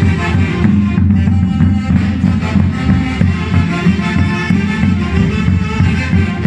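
Music: a band track with a steady beat, in a Latin style.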